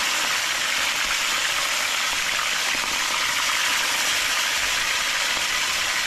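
Fish frying in oil: a steady, even sizzle.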